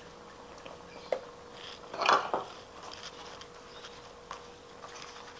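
Cooking utensils clinking in a wok: a spatula knocking and scraping in the pan, with a sharp click about a second in, a louder clatter about two seconds in and a few light ticks after.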